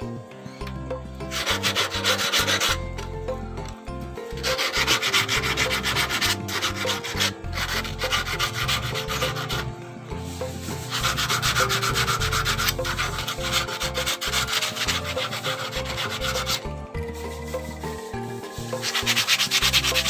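Sandpaper rubbed rapidly back and forth by hand over the cut corners of a small steel plate made from slotted angle iron, smoothing off the sharp edges. The rubbing comes in several spells with short pauses between.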